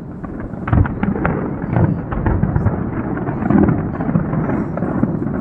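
Fireworks going off: repeated sharp bangs over a continuous low rumble.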